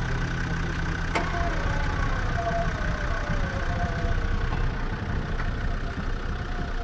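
Land Rover Defender's engine running while its front winch pulls the truck forward through snow on a taut cable. A whine slides lower in pitch over a few seconds, and there is a sharp click about a second in.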